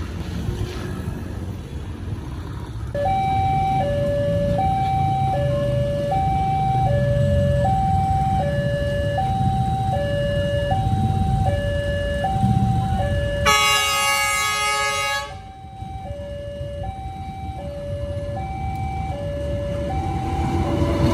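Level-crossing warning alarm sounding, a high and a low tone taking turns about every 0.7 s, signalling an approaching train, over the low rumble of idling road traffic. About halfway through, a train horn sounds once for under two seconds, and near the end the rumble of the arriving train rises.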